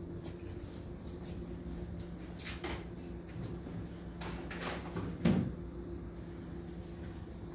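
A dustpan being emptied into a trash can: a few light clatters and one louder knock about five seconds in, over a steady low hum.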